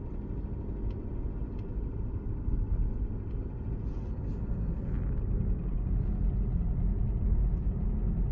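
Alfa Romeo Giulia 2.2 diesel four-cylinder engine idling cold, with a knocking, ticking clatter in its running. The owner does not know what causes it; it appears while the engine is cold.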